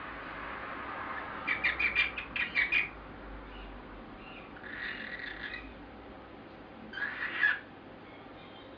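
Pet bird giving whistle-like chattering calls in three bursts: a quick run of about eight short notes, a softer chatter, then a short loud call near the end. These are the noises the owner takes for the bird trying to whistle.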